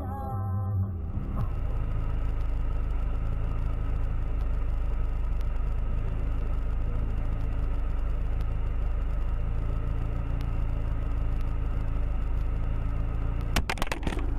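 Car engine and road noise: a steady low rumble with a low engine drone, and a quick cluster of sharp clicks or knocks near the end.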